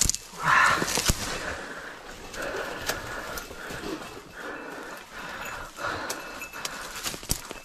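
A person breathing hard, one heavy breath about every second, with dry twigs and branches snapping and rustling as they push through dense brush.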